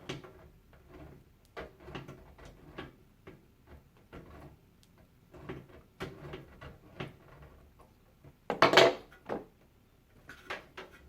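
Hardware being handled by hand: irregular clicks, taps and knocks, with one louder clatter about three-quarters of the way through.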